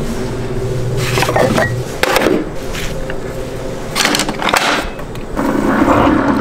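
Kitchen clicks and clunks as a cabinet door is opened and a Keurig single-serve coffee brewer's lid is lifted and shut over a pod. About five and a half seconds in, the brewer starts with a steady mechanical hum as it begins to brew.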